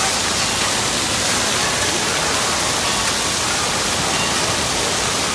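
Water spraying and pouring down from an indoor water-park play structure onto a wet floor: a steady, even hiss.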